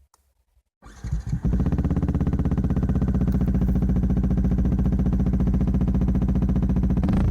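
Yamaha WR 125's single-cylinder four-stroke engine starting about a second in, catching raggedly, then settling into a steady, evenly pulsing idle. The recording is distorted.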